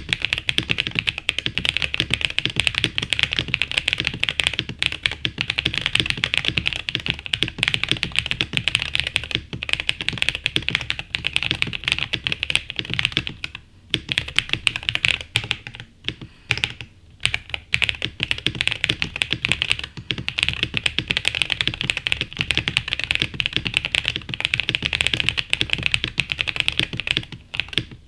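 Fast, continuous typing on a lubed mechanical keyboard: a GM326 gasket-mount board with hand-lubed Akko V3 Cream Blue Pro tactile switches, a polycarbonate plate and PBT keycaps. There are brief pauses about 13 and 16 seconds in.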